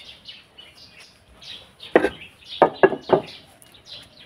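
Small birds chirping with many short, falling calls, and four loud thumps in quick succession between about two and three seconds in.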